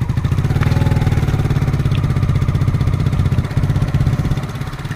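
Small motorcycle engine running under load with three people aboard, its pitch rising in the first second or two as it speeds up, then holding steady.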